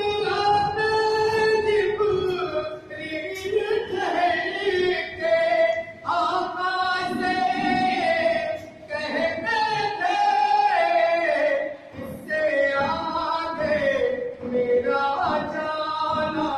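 Singing: a melody sung in long held notes that glide from pitch to pitch.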